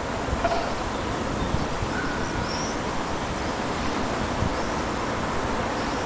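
Steady outdoor background noise, a low rumble and hiss, with a few faint short chirps.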